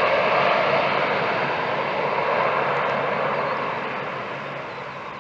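Dash 8 twin-turboprop airliner on landing approach with its gear down, the rushing noise of its engines and propellers fading steadily as it flies away.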